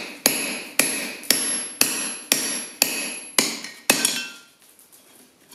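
Hand hammer striking a steel slot punch held in hot steel on an anvil, driving a slot through the bar: about eight blows, roughly two a second, each with a metallic ring. The blows stop about four seconds in.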